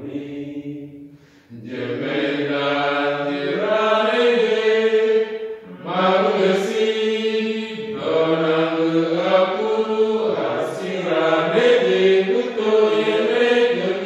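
A small group of voices singing a slow, repetitive Taizé-style chant in Ngambay, held notes in phrases with short breaths between them, one about a second in and another near six seconds.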